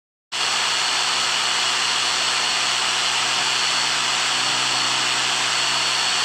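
Bitec HBM-50 electric demolition hammer running steadily with no load, a loud even motor noise with no separate hammer blows standing out. It starts abruptly about a third of a second in.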